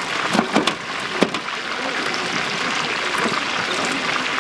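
Hot oil sizzling steadily as food deep-fries, with a few sharp clicks in the first second and a half.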